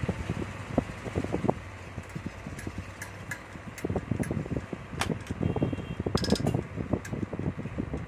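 A table fan's electric motor running without its blade, a steady hum, under the knocks and clicks of the fan being handled, with a short metallic clink about six seconds in.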